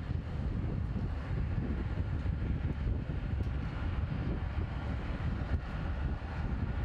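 Boeing 747 jet engines running at taxi power as the airliner rolls along the taxiway: a steady low rumble.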